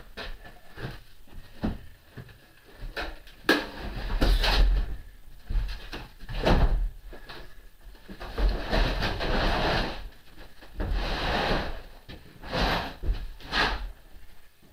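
Irregular knocks, clatters and scraping with stretches of rustling, as lathe parts and packing material are handled and pulled from the shipping crate.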